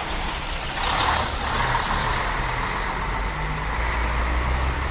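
A motor vehicle running: a steady low rumble, with a rush of noise coming up about a second in and a thin, steady high whine over it.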